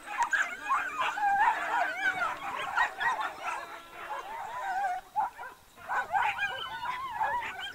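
Coursing dogs yelping and whining in quick, overlapping high-pitched cries, with a short lull about five seconds in.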